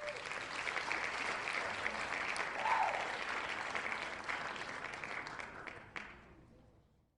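Applause from a crowd, many hands clapping, fading out over the last couple of seconds.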